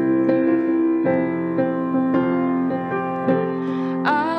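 Piano playing a slow interlude of struck, sustained chords between the sung phrases of a blessing. A singing voice comes in near the end.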